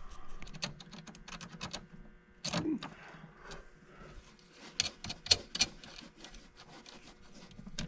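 Irregular light clicks and knocks from hands working on boat battery cable connections, with a louder knock about two and a half seconds in and a cluster of them about five seconds in.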